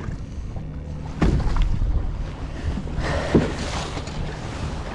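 Wind buffeting the microphone over choppy water lapping against a fishing boat's hull, with a couple of knocks and a louder rush of wind and water around three seconds in.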